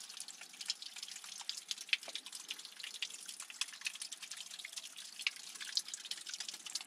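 Water seeping down a wet rock face and dripping off it: many quick, irregular drips with a thin trickle under them.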